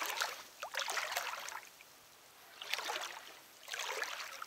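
Shallow river water sloshing and splashing in three bursts, the first one long and the other two short, as someone moves through it.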